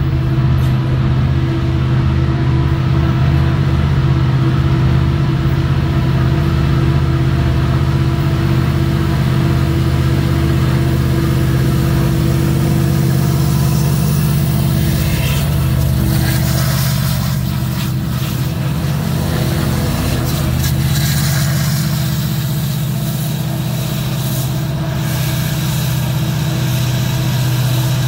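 EMD diesel locomotives pushing a loaded coal train, their engines working under load with a steady, low, droning hum, over the rumble of the coal cars rolling by. Sharper wheel-and-rail noise joins in about halfway through.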